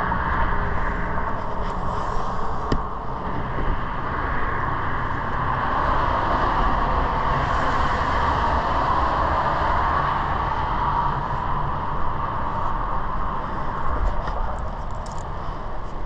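Steady noise of highway traffic, passing vehicles swelling and fading, with a few light clicks near the end.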